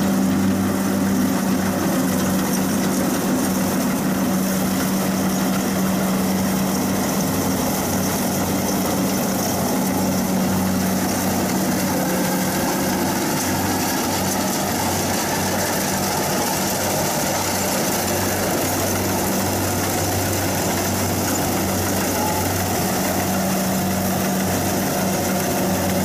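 Kubota DC60 combine harvester's diesel engine running steadily as the machine cuts rice, a constant mechanical drone.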